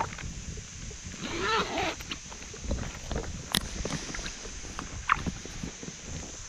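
Irregular small knocks, bumps and water sounds from an angler shifting about in a float boat, over a low rumble. A short wavering pitched sound comes about a second and a half in.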